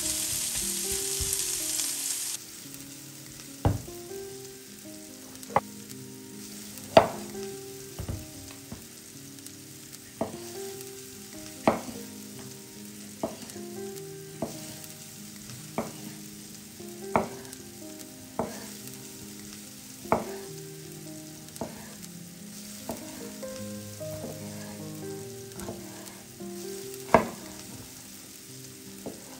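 Food frying in a pan, loud sizzling for the first two seconds or so, then a quieter sizzle while a utensil stirs and knocks sharply against the pan every second or two.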